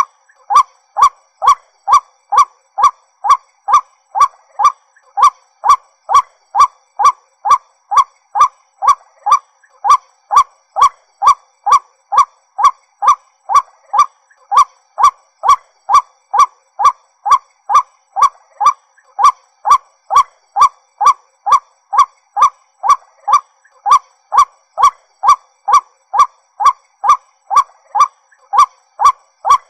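White-breasted waterhen calling: one short croaking note repeated steadily about twice a second, with a few brief pauses.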